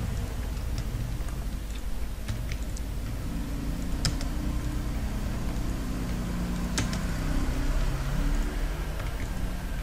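A few scattered sharp clicks from computer mouse and keyboard use over a steady low hum. The loudest clicks come about four and seven seconds in.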